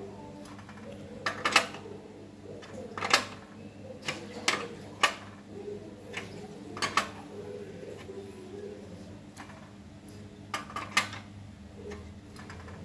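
Irregular sharp metallic clinks and knocks as a cotton candy machine's copper spinner head is worked onto its shaft with a metal rod and tightened by hand. The clinks come singly and in small clusters, over a faint steady hum.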